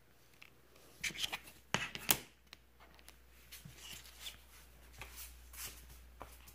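Trading cards in hard plastic cases being handled and turned over: a quick run of sharp clicks and taps about a second in, then soft rubbing and light ticks.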